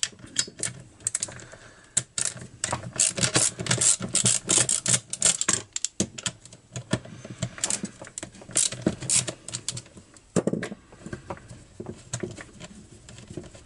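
Runs of rapid clicks and scraping from a hand tool backing out the self-tapping screws that hold the ignition module to a Partner 352 chainsaw's plastic housing.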